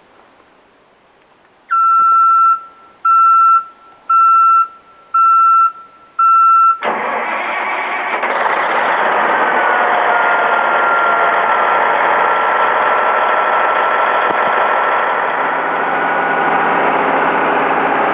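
Five loud beeps of a start-up warning alarm, about one a second, then the Morbark 1100 tub grinder's Cat C18 diesel engine starts about seven seconds in and runs steadily, with a faint high whine over it.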